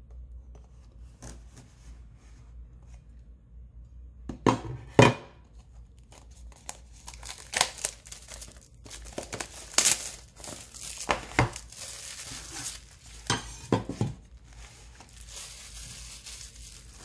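Plastic shrink-wrap on a phone box being cut with a cleaver, then torn off and crinkled in the hands, with a couple of sharp knocks about four to five seconds in.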